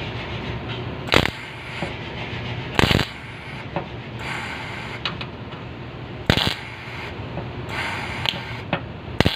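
Metal clanking and scraping during vehicle bodywork: four loud sharp metallic knocks at irregular intervals, with lighter clicks and scraping between them over a steady low hum.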